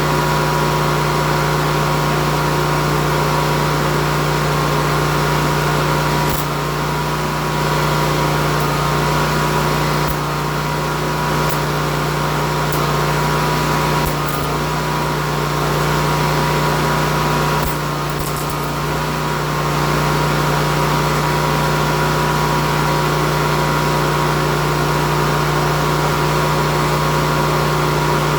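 A steady machine hum like an electric motor running, which dips slightly twice, about six and a half seconds in and again near eighteen seconds.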